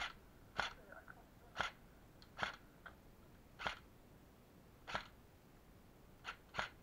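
Airsoft gunfire: about nine sharp single cracks at irregular intervals, a couple of them in quick pairs.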